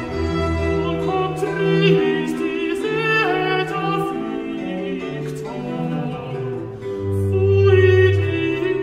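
Slow classical music played on bowed strings, with a deep cello line that swells near the end.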